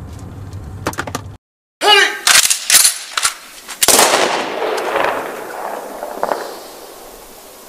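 Gunfire: a run of sharp shots starting about two seconds in, then a longer burst around four seconds that fades over the next few seconds.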